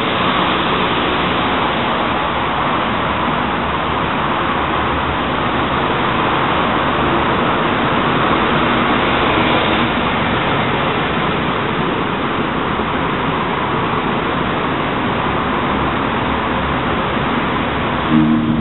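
Steady road-traffic noise, an even rushing hiss with no breaks. Near the end a few sustained chime-like tones come in.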